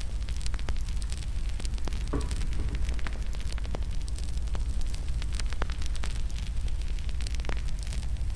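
Wood fire crackling in a fireplace: a steady low rumble of flames with frequent irregular sharp pops and snaps.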